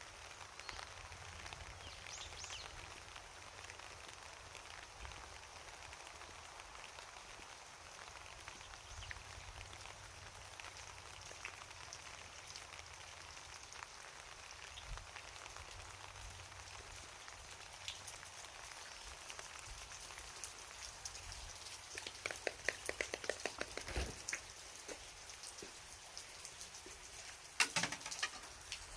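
A shrine bell shaken on its rope: a run of quick rattling jangles starting about 22 seconds in, then a brighter, louder jangle near the end. Under it, a steady soft hiss.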